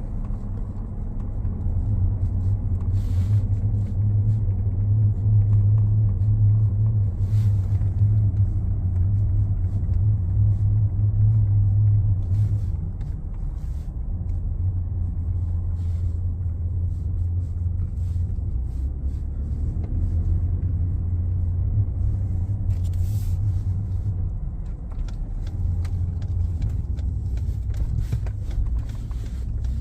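Low, steady humming drone from a 2019 Ford F-150 Lariat, louder for roughly the first twelve seconds and then easing to a steady level. The owner suspects the front integrated wheel ends (IWE), the 4x4 actuators or the front differential.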